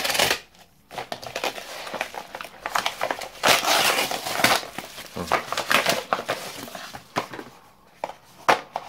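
A yellow bubble-lined padded mailer being slit along its edge with a knife, then crinkling and rustling as it is pulled open and a small cardboard box is slid out.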